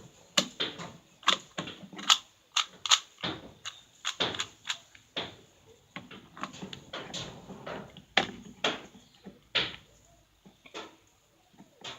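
Rubik's cube being turned and handled: irregular sharp plastic clicks and clacks, several a second, thinning out near the end. The cube has just been lubricated with WD-40.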